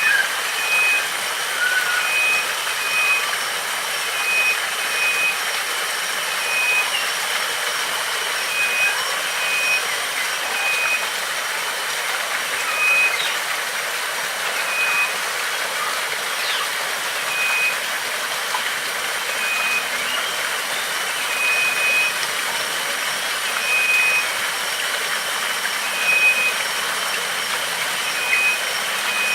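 Steady rush of flowing water, with a bird repeating short, even notes, often in quick pairs, every second or two.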